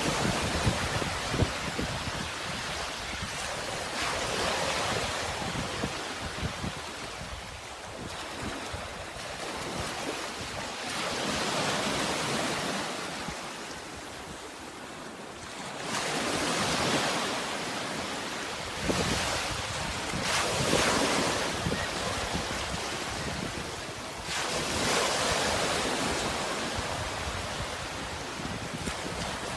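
Sea waves washing in and drawing back: a hiss that swells and fades again every four to five seconds.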